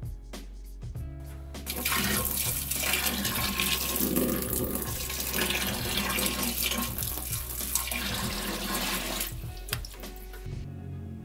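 Water pouring in a stream into a glass tank and splashing over two leather work boots as the tank fills, starting about two seconds in and dying away about a second before the end. Background music plays underneath.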